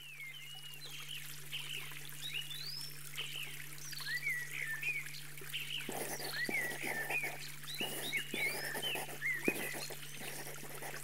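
Birds singing in quick, repeated chirping phrases over a steady low hum, with a trickle of running water joining about halfway through.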